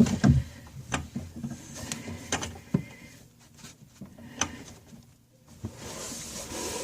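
A handful of sharp, irregularly spaced clicks and knocks from plumbing parts and tools being handled while a tap is fitted under a bathroom sink, with soft rustling near the end.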